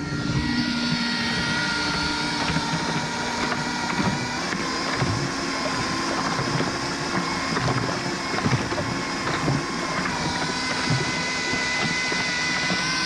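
Cordless 18-volt drill used as an improvised electric outboard, its motor whining steadily as it spins the propeller at speed, with water rushing and splashing along the inflatable tender's hull. The whine shifts slightly in pitch a couple of times.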